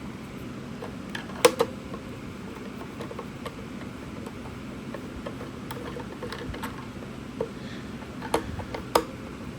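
A few sharp clicks and taps of hand handling, two close together about one and a half seconds in and two more near the end, with smaller ticks between, over a steady low room noise.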